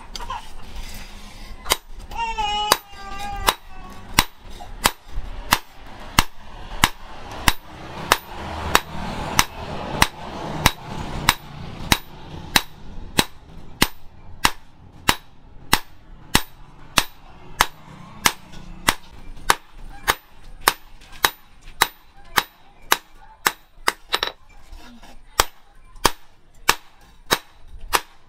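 Blacksmith's hand hammer striking a red-hot steel knife blade on a post anvil: sharp metallic blows in a steady rhythm of about one and a half a second.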